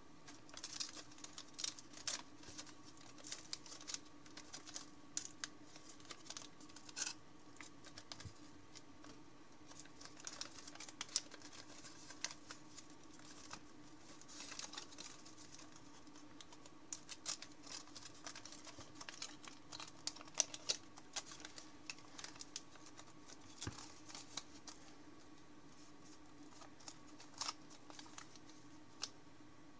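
Thin 50 g origami paper crackling and rustling as fingers fold and crease a multi-layered model, in quick, irregular clicks and crinkles.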